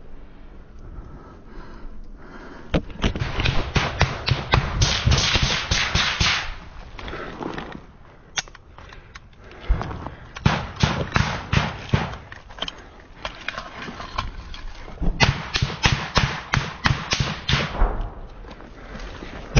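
Small-arms gunfire in a firefight: three long strings of rapid shots with short lulls between them.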